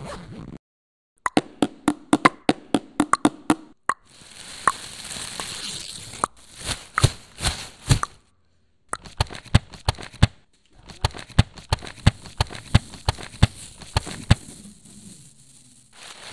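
Hand-made foley sound effects: runs of sharp taps and clicks, some in quick succession and some spaced out, mixed with stretches of crackling rustle. The sound cuts out to silence for a moment several times.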